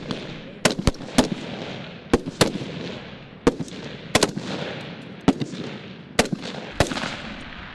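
Rifle fire from several shooters: single shots at an uneven pace, roughly one or two a second, each sharp crack followed by a trailing echo.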